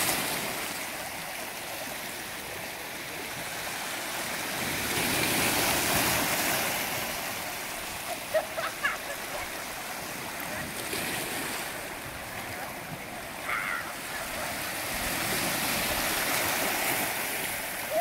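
Small Mediterranean waves washing in over a pebble shore: a steady wash of water that swells and ebbs roughly every five to six seconds.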